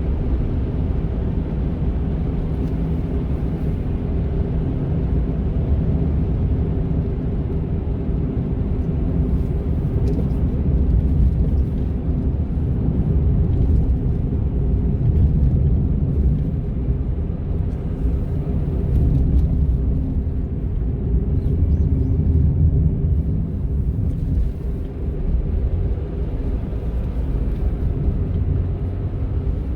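Cabin noise of a Honda N-ONE kei car on the move: its 660 cc three-cylinder engine running with steady road rumble. Faint steady humming tones run under the rumble, the kind of motor-like sound the owner reports as an abnormal noise on this 300,000 km car.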